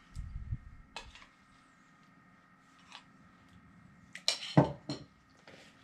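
A spoon scooping tzatziki and knocking against bowls: a few light clicks, then a cluster of sharper knocks between four and five seconds in, the loudest part.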